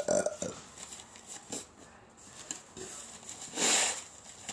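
A person blowing their nose hard into a paper napkin about three and a half seconds in, one noisy blast lasting about half a second. A couple of short vocal sounds come at the very start.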